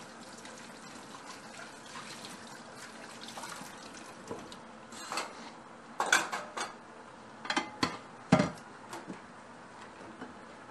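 Dishes and cutlery clattering in a kitchen: a run of sharp knocks and clinks through the middle, over a faint steady hiss.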